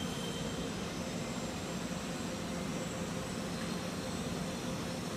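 Electric commuter train rolling slowly toward the listener: a steady hum and rumble.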